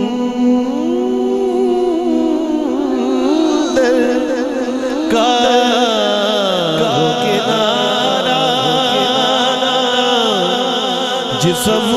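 Naat sung in long, ornamented melodic phrases over a steady held drone.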